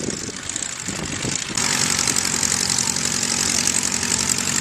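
Light aircraft's piston engine running at idle, getting suddenly much louder about a second and a half in, with a steady hum and a hiss.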